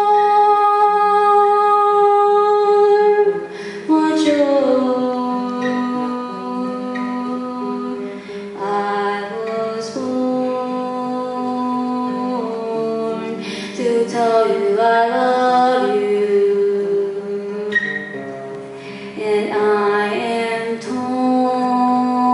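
A girl singing a slow melody with long held notes, the first held for about three seconds, while accompanying herself on a nylon-string classical guitar.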